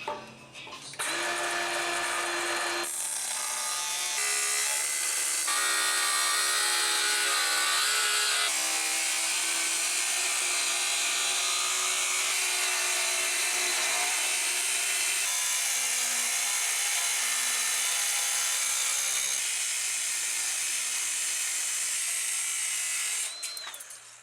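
Electric power saw cutting wood: a loud motor whine with cutting noise whose pitch shifts now and then as the load changes. It starts about a second in and stops abruptly near the end.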